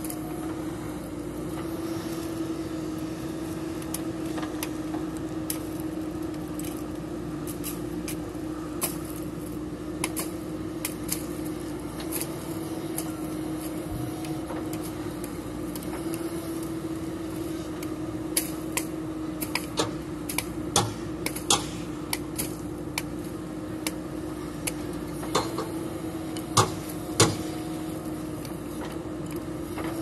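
JCB 3DX backhoe loader's diesel engine running at a steady hum while the backhoe digs and dumps soil. Sharp knocks and clanks from the working bucket and arm come more often in the second half, with the two loudest near the end.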